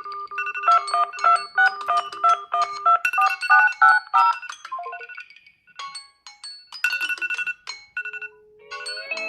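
Smartphone ringtone playing: a jingly electronic melody of short bell-like notes over a pulsing lower tone, stopping about five seconds in and starting again a second later.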